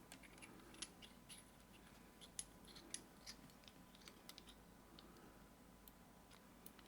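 Faint, irregular clicks and light scrapes of a lock pick working the pins inside an Abus GDS lock, the strongest about a second, two and a half and three seconds in.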